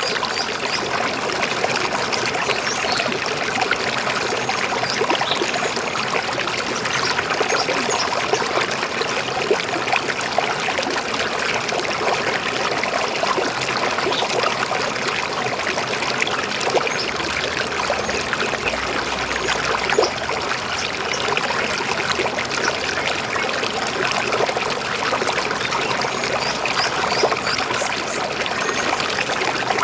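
River water flowing and trickling over stones: a steady, even babble.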